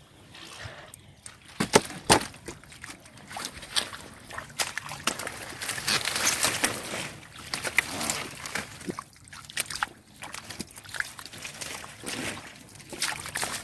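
Shallow water sloshing and splashing in irregular bursts as someone wades and feels through it by hand, with two sharp splashes about two seconds in.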